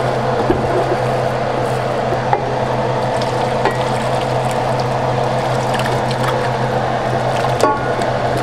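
Stock and roux sizzling in a hot skillet while being stirred and blended, with scattered light clicks and scrapes of the spoon against the pan, over a steady low hum.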